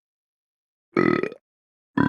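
A single short burp, about half a second long, about a second in, after a gap of silence. Another burp begins just at the end.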